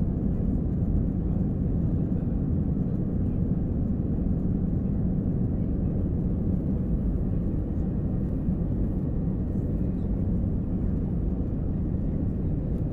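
Airplane engine noise during take-off: a steady low rumble that holds level, without rising or falling.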